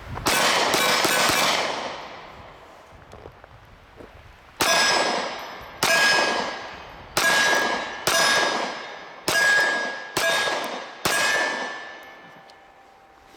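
SIG Sauer P365 9mm pistol firing: a quick string of shots at the start, then seven more about a second apart. The later shots are each followed by a short ringing ping.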